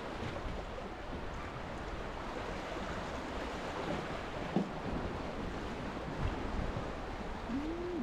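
Small sea waves washing and lapping at high tide, a steady rushing noise, with wind rumbling on the microphone.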